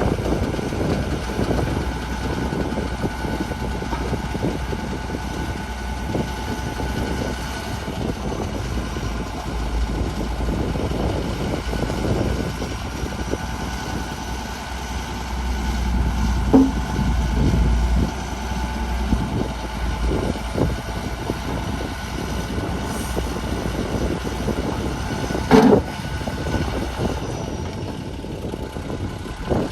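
Heavy diesel earthmoving machinery (bulldozer and dump trucks) running steadily with a low rumble, with a sharp clank about halfway through and a louder one near the end.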